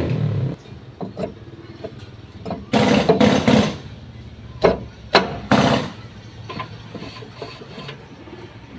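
A few scattered knocks and scraping sounds of hand tools being worked, the loudest cluster about three seconds in, over a low steady background.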